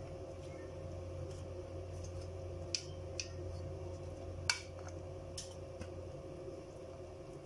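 A plastic spoon scooping cooked spinach and dal out of an aluminium pressure cooker, with a few light clicks of the spoon against the pot, the sharpest about four and a half seconds in. A steady low hum runs underneath.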